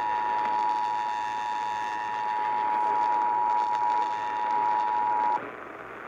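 Emergency Alert System two-tone attention signal from a Sangean CL-100 radio's speaker, steady over AM-band hiss, marking the start of a severe thunderstorm warning broadcast. It cuts off suddenly about five seconds in, leaving only the hiss.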